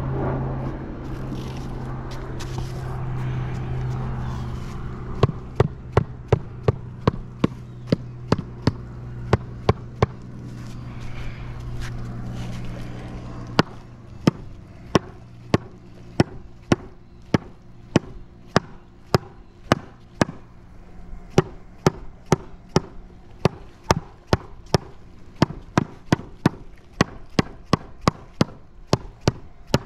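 A rubber mallet repeatedly tapping a marble paver down to seat it snug in its bed. It strikes in a steady run of about two to three blows a second, with a short pause near the middle. A low steady hum underlies the first half.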